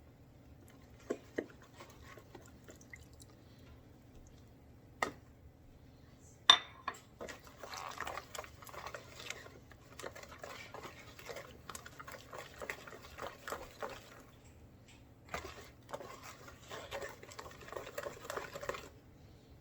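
A few clinks of a utensil against a mixing bowl as melted butter goes into cake batter, then the batter is stirred by hand: quick, irregular scraping and sloshing of the utensil in the bowl, with a short pause partway through.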